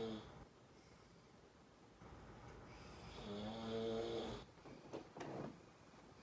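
A sleeping man snoring: the tail of one snore right at the start, then one long snore about three seconds in. A few soft rustles follow near the end.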